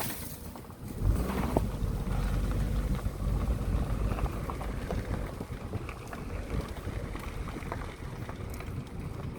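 Vehicle driving: a steady low rumble of engine and road noise that comes up about a second in and holds.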